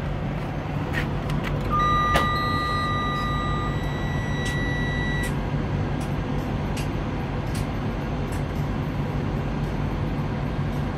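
Semi truck's diesel engine idling steadily. About two seconds in, two steady high tones sound together for a few seconds, the lower one stopping after about two seconds and the higher one a second and a half later, with a few light clicks scattered through.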